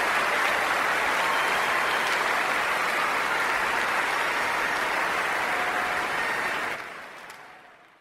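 Crowd applauding: a steady, dense clapping that fades out near the end.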